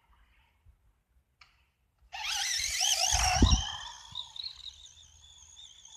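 Remote-control car's electric motor starting up about two seconds in with a loud high whine that wavers in pitch, then settling to a quieter steady whine. A low thump comes about a second after the start.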